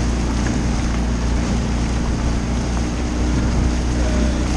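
Outboard motor of a coaching launch running at a steady pace, with wind buffeting the microphone and the rush of water.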